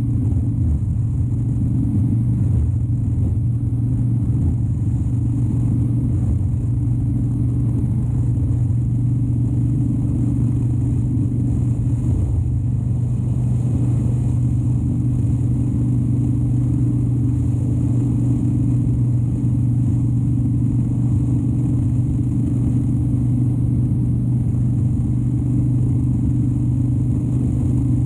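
2013 Harley-Davidson Dyna Wide Glide's 103-cubic-inch V-twin running at a steady cruise, its exhaust note holding one even pitch with no shifts or revving.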